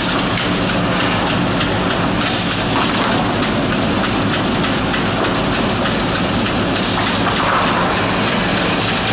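Industrial wood-processing machinery running steadily: a constant dense mechanical noise with a low hum underneath, swelling slightly in the upper range now and then.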